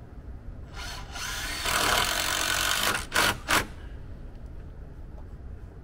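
A power tool running in framing work: one burst building up and lasting about two seconds, then two short blips, over a steady low rumble.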